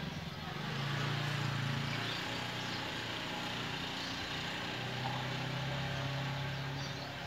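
A low, steady engine drone, swelling about a second in and again near the end, over general outdoor street noise.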